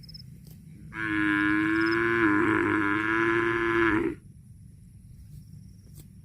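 A cow mooing: one long call of about three seconds, steady in pitch with a brief waver in the middle, starting about a second in.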